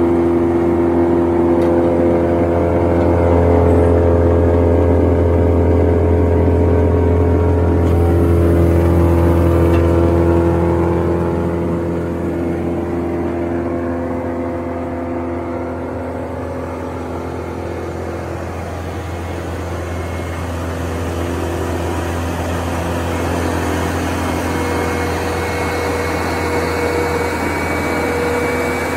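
Morbark Hurricane 18 wood chipper running empty, its engine and drum going steadily. The sound eases somewhat about eleven seconds in and builds again toward the end.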